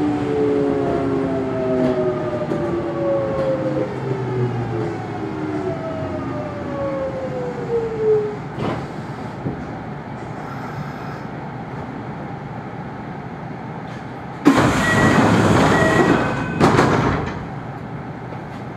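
Kintetsu Ikoma Line electric train braking into a station: its traction motor whine, several tones together, falls steadily in pitch as it slows and fades out. After it stops, a loud hiss of released compressed air comes about fourteen seconds in, with a second, shorter one a moment later.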